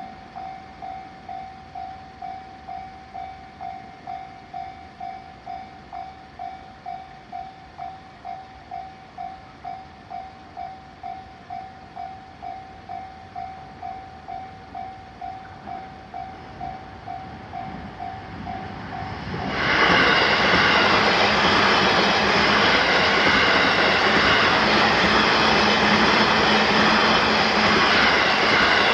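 Japanese level-crossing alarm bell ringing steadily, about two dings a second. About twenty seconds in, a train rushes through the crossing loudly for around nine seconds, drowning the bell.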